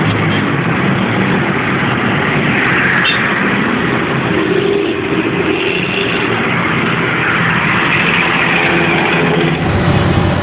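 Diesel bus engine running loudly through a 'ngorok' exhaust, a steady snoring drone. The sound changes abruptly to another recording about 9.5 seconds in.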